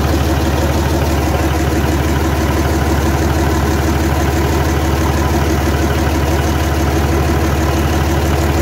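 Gardner 6HLW horizontal six-cylinder diesel engine idling, loud and steady with an even, fast beat.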